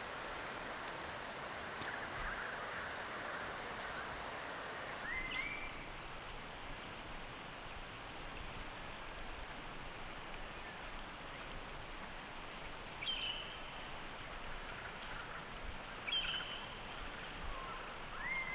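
Bush ambience: a few short rising whistled bird calls spaced several seconds apart over a steady background hiss, with a faint high insect trill in the middle stretch.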